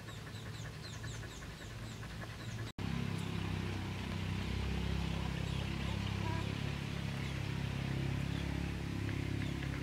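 Faint outdoor ambience with quick, high bird chirps; about three seconds in, after a brief dropout, a louder steady low hum takes over.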